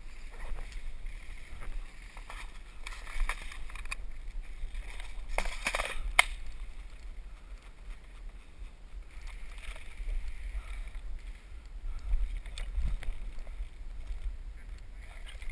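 Rustling and crunching of a person moving through forest undergrowth and leaf litter, over a low rumble of handling or wind on the camera's microphone, with one sharp click about six seconds in.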